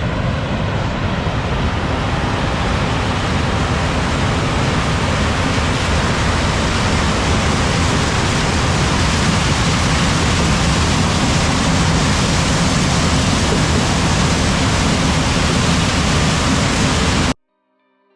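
Combine harvester running under load in corn, a loud, steady, even rush of machinery noise that cuts off suddenly near the end.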